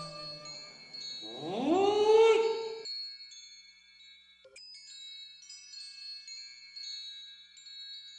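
Wind chimes tinkling, with many high ringing tones starting and stopping. About a second and a half in, a louder tone slides up in pitch, holds briefly, and cuts off abruptly.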